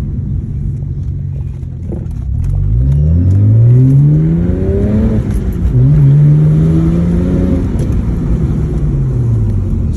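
BMW N54 twin-turbo straight-six accelerating hard through the gears: the engine note rises steeply, drops with an upshift about halfway through, climbs again, then falls as the throttle eases off near the end. The car is under boost on a test pull with freshly replaced boost solenoids.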